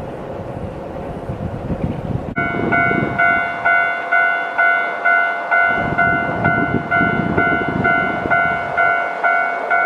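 Keihan electric train rumbling over a steel railway bridge; about two and a half seconds in the sound cuts to a level-crossing warning bell ringing about twice a second, over the rumble of a train.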